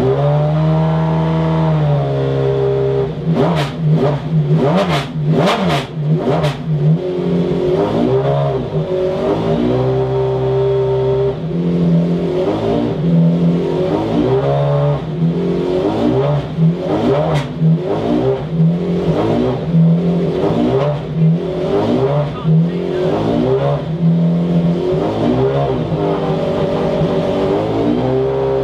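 McLaren F1 GTR Longtail's BMW V12 engine idling and being revved again and again in short blips, the pitch rising and falling each time. A run of sharp cracks comes a few seconds in.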